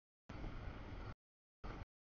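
Double-stack container freight train rolling past, a noise strongest at the low end that cuts in and out abruptly to dead silence twice: the audio feed is dropping out.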